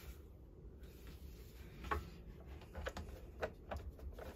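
Faint, irregular clicks and light knocks from gloved hands working on a Stihl MS251 chainsaw's plastic housing and fittings. They start about two seconds in and come roughly every half second.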